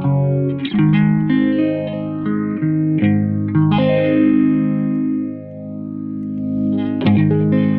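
Fender Stratocaster electric guitar played through an MXR Phase 95 phaser in 90 mode with script off, into a tube amp: ringing chords struck three times, with a slow sweeping phase moving through the tone.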